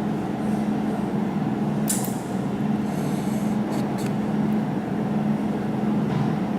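Jewelry laser welding machine running with a steady hum, with a few short sharp snaps from its laser pulses, once about two seconds in and a few more around three to four seconds in.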